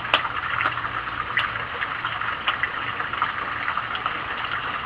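Wood fire burning in a rocket stove: a steady rushing hiss with scattered crackles and pops, the stove drawing well as it comes up to temperature.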